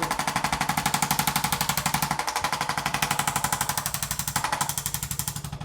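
Electric percussion massager hammering rapidly, about a dozen beats a second, over a steady motor hum.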